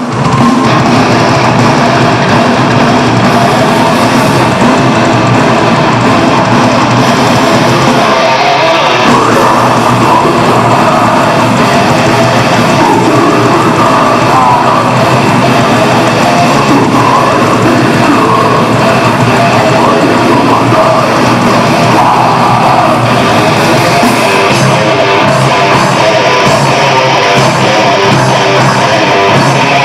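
Heavy metal band playing loudly and without a break: distorted electric guitars over a drum kit.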